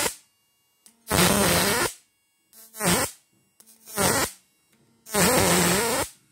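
High-voltage electric arc from a homemade transistor-inverter fish-shocking machine, drawn at its output leads. It comes in five loud buzzing bursts about a second apart, the longest about a second, each cutting off sharply.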